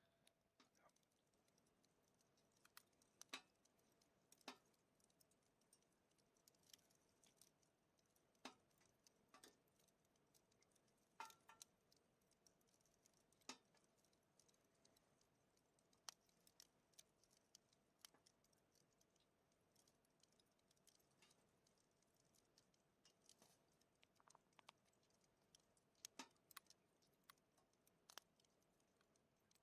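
Faint wood campfire burning, with sparse sharp crackles and pops at irregular intervals, roughly one every second or two.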